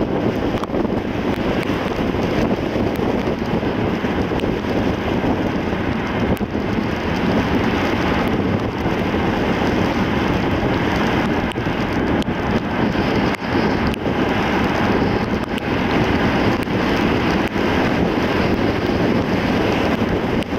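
A car driving at a steady pace: a constant rush of tyre and wind noise.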